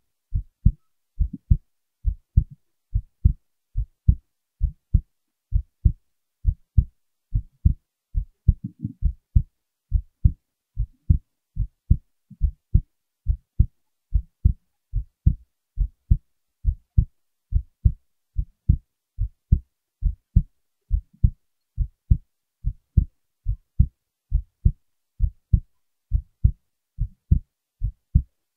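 Heartbeat, a steady, regular rhythm of low paired thumps (lub-dub), a little over one beat a second. A brief rubbing noise breaks in about nine seconds in.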